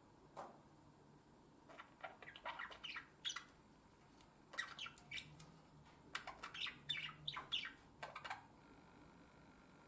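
Budgerigar warbling its courtship song to its mate: bursts of quick chirps and squeaky notes separated by short pauses, starting about a second and a half in.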